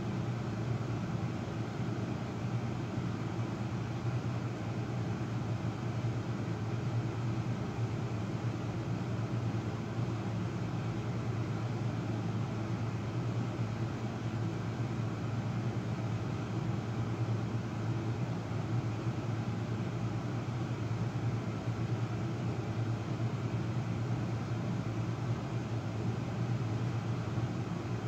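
Steady low mechanical hum with a hiss over it, unchanging throughout.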